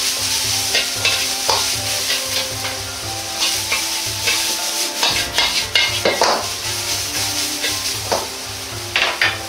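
Bean sprouts and carrot strips sizzling in a hot wok, stir-fried with a metal ladle that scrapes and knocks against the pan again and again.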